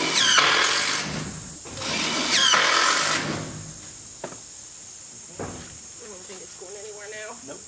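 Power drill driving screws through a metal wall panel into the wooden frame: two runs of a second or so each, the motor whine rising as it spins up. A couple of sharp clicks follow.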